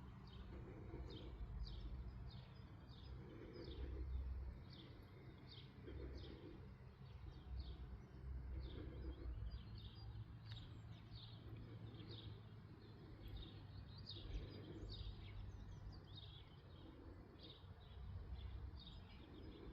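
Small birds chirping, a long series of short, high, falling chirps about two or three a second, over a faint low background rumble.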